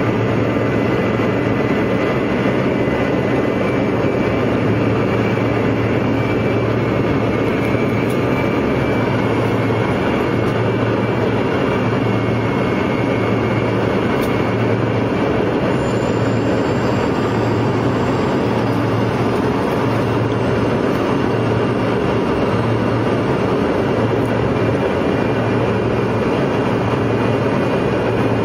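Steady airliner cabin noise in flight: an even, constant rush with a low hum underneath.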